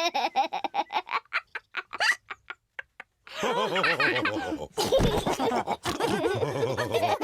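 A fast run of short sharp sounds that fades away, then after a brief pause cartoon pig characters laughing together.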